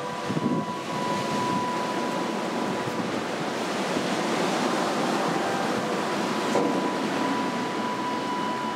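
Rough sea surf breaking and washing up a sandy beach in strong wind: a steady rushing noise of waves and wind.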